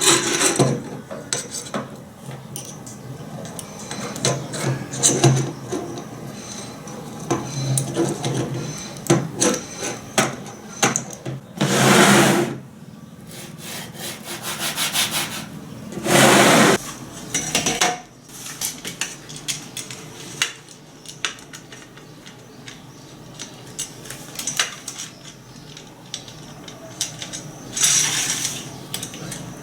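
Scraping and rubbing of tool work on a workpiece, with irregular clicks and a few louder strokes of about a second each, roughly twelve and sixteen seconds in and near the end.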